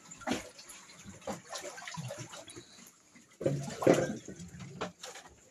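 Scattered knocks and rustling from plastic pet carriers being handled and carried, with one louder sound lasting about a second about three and a half seconds in.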